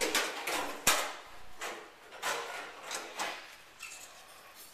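Plastic bins and crates knocking and rattling as they are handled and moved, in a series of separate knocks with the sharpest about a second in, growing fainter toward the end.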